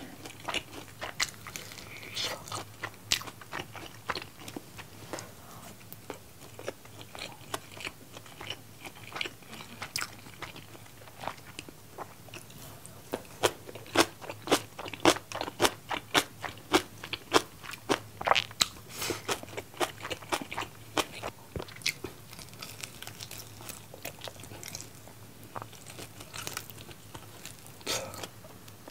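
Close-up chewing and crunching of bone-in yangnyeom (sweet-spicy sauced) fried chicken: a run of short crisp crunches, thickest about halfway through.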